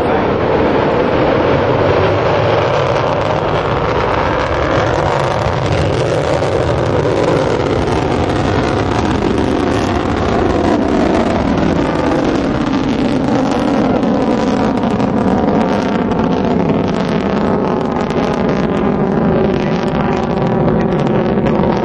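Delta II rocket's first-stage main engine and ground-lit solid rocket motors roaring in ascent after liftoff: a loud, steady rumbling roar whose tone wavers slowly up and down.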